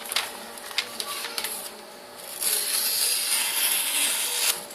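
A small Sanrenmu slip-joint folding knife slicing through paper, as a test of its factory edge. A few light clicks of handling come first, then about halfway through a steady, rasping hiss of the blade through the sheet that lasts about two seconds and stops suddenly.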